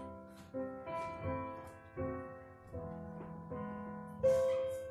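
Recorded piano music for ballet class, single notes and chords struck every half second to second, each fading before the next.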